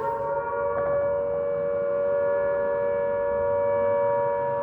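Civil-defence air-raid siren sounding one steady, held tone with two close pitches, signalling an air-raid alert.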